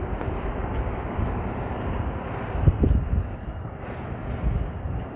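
Car driving through city streets: steady road and engine rumble, with a couple of brief low thumps near the middle.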